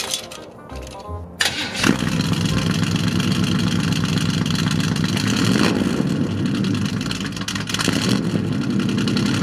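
A Buick's engine is started about a second and a half in, catches quickly and settles into a steady idle. It runs with Hot Wheels toy cars stuffed in its tailpipe, which let the exhaust pass freely, so no pressure builds and there is no pop.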